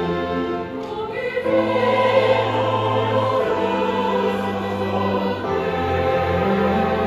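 Mixed church choir singing a slow hymn in parts, accompanied by violins, piano and organ; the choir's voices swell in about a second and a half in over low held bass notes.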